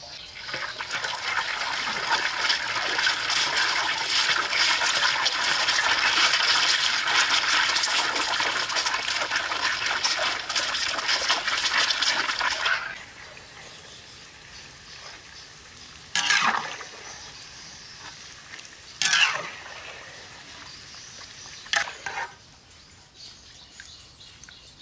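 Raw eggs hitting a large wok of hot oil, sizzling and crackling loudly and densely for about twelve seconds. The sound then drops away suddenly to a low, steady sizzle, with three short swishes of a ladle stirring through the frying eggs.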